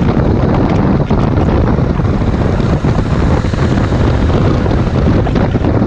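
Heavy wind buffeting on the microphone of a Ducati Multistrada 1260 S being ridden along a road, over the steady running of its V-twin engine.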